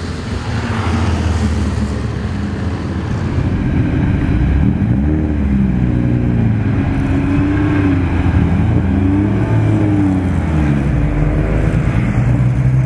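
Maserati A6GCS/53's 2-litre inline-six racing engine revving up and easing off again several times while the car rolls along at low speed.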